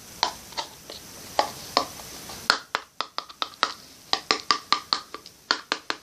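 Sharp irregular clicks and taps, sparse at first and coming several a second from about halfway, as a small magnetic toy figure's magnet hands and feet are tapped against a household container to test whether it sticks.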